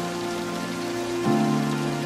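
Heavy rain pouring down in a steady hiss, with background music of held chords underneath that change and swell about a second and a half in.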